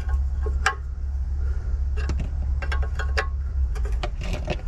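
A spanner clinking on a brake caliper's bleed nipple: a scattered series of light metal clicks and ticks over a steady low hum.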